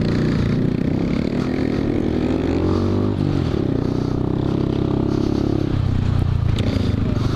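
Motorcycle engine on the trail bike carrying the camera, pulling hard with its note rising. About three seconds in, a gear change drops the pitch. It then runs steadily and eases lower about six seconds in.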